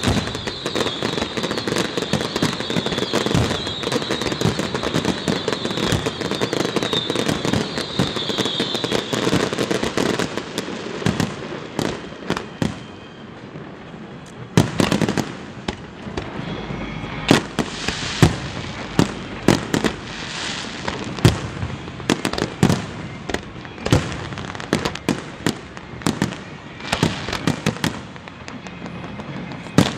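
Aerial fireworks display. For about the first ten seconds it is a dense, continuous crackle. After that come a string of separate sharp bangs of shells bursting, some of them loud.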